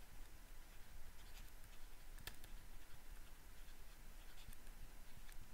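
Faint scratching and light taps of a stylus writing by hand on a tablet, with a few small ticks, the clearest a little over two seconds in.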